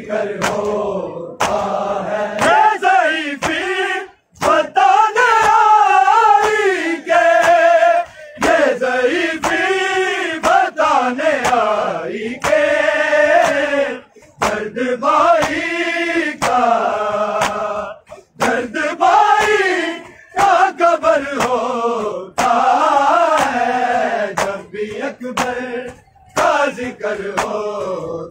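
A group of men chanting a Shia noha in unison, in long rising and falling sung lines with short pauses between them. A steady beat of open hands slapping bare chests (matam) runs under the chant.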